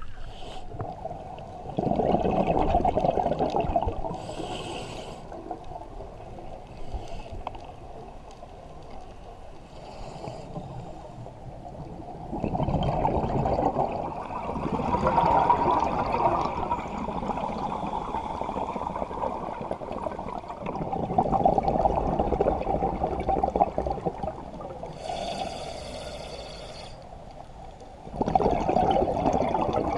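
Scuba exhaust bubbles gurgling, heard muffled underwater. They come in bursts of a few seconds with quieter gaps between, and there are two short hisses.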